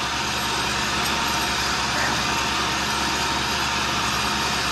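Tool and cutter grinder running, its wheel grinding a small steel line boring bar turning in a belt-driven workhead: a steady grinding hiss over the even hum of the motors.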